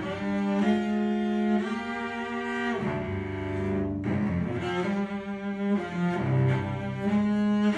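Solo cello played with the bow: sustained notes that change pitch every half-second or so, dipping into the instrument's low register about three seconds in.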